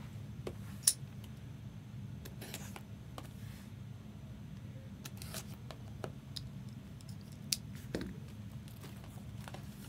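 Trading card packaging being handled: a few sharp clicks, the loudest a bit under a second in, and short rustles of crinkling wrapper, over a low steady hum.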